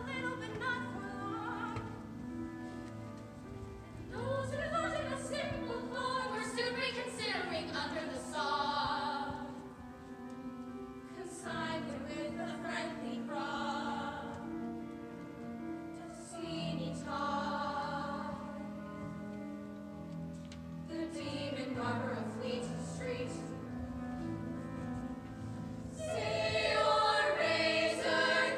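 Musical-theatre singing by the cast, with solo voices and an ensemble over sustained instrumental accompaniment; the full ensemble comes in louder near the end.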